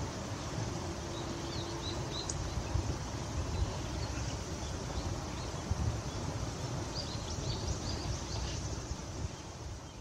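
Steady outdoor background noise with a low rumble and a few soft low thumps. Faint short, high chirps from small birds come in a little cluster about a second and a half in and again from about seven seconds.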